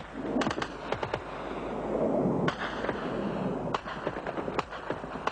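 Battle noise: rapid sharp pops and bangs of gunfire and explosions. A rushing noise swells from about a second in and cuts off abruptly about two and a half seconds in, then more scattered pops follow.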